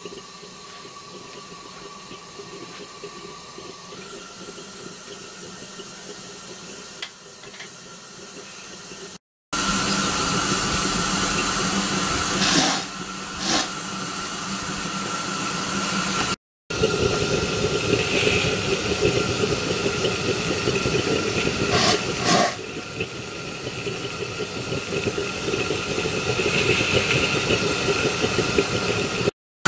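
Steady hiss of a miniature steam locomotive being fired on a butane gas burner, with steam escaping as the boiler comes up. The sound is fairly quiet at first, then much louder after a cut about nine seconds in, with a couple of brief louder surges.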